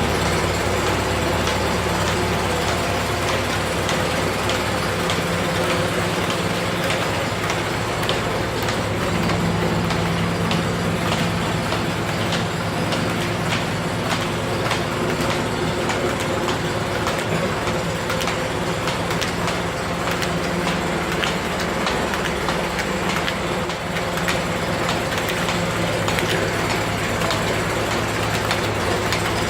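Four-sided planer running steadily: a constant machine hum with a dense crackle of small clicks over it.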